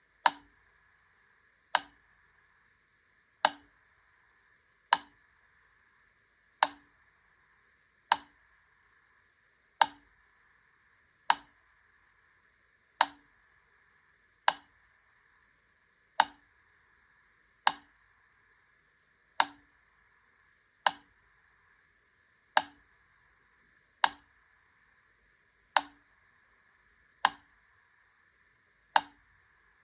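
Wittner Taktell Piccolo clockwork metronome ticking slowly and evenly, one sharp click about every one and a half seconds, its pendulum weight set near the slowest tempo. A faint steady hiss lies underneath.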